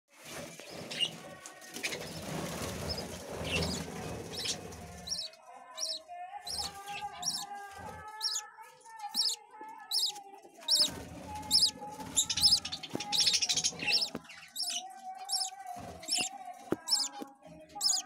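Budgerigars chirping in rapid short high calls, about two or three a second, over lower drawn-out calls. The first five seconds are mostly a rustling noise.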